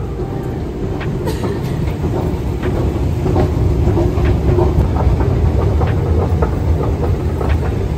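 Railway station noise: a steady low rumble with irregular clicks and clacks scattered through it, and a faint hum in the middle.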